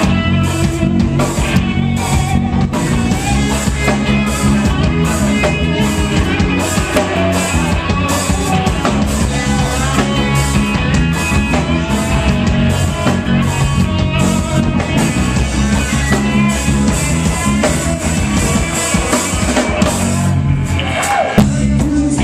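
Live reggae band playing: drums on a Yamaha Rock Tour kit, bass, guitar and a lead singer's voice. The bass drops out briefly near the end.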